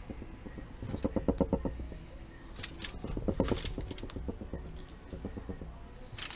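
Kitchen knife sawing through a lemon on a cutting board in quick rasping strokes, about ten a second, in three short runs, with a few faint crackles between them.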